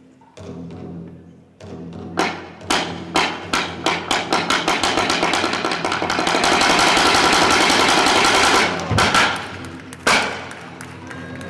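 Show music: sharp percussion strikes come faster and faster and run together into a rapid roll for a few seconds, then break off. One loud strike follows near the end, over a steady low backing tone.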